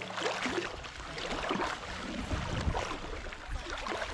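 Pond water sloshing and swishing around legs wading through it, in irregular splashes.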